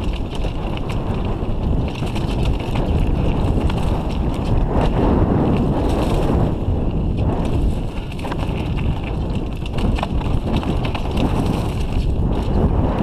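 Wind buffeting the microphone over the rumble of a mountain bike's tyres rolling on a dirt trail, with scattered clicks and rattles from the bike over the rough ground.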